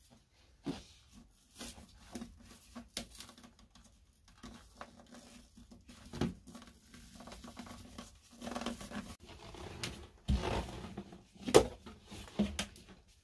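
A knife scoring vinyl floor covering and the cut square of vinyl being peeled and torn up off the wooden floor: irregular scrapes, clicks and tearing, loudest about ten to twelve seconds in.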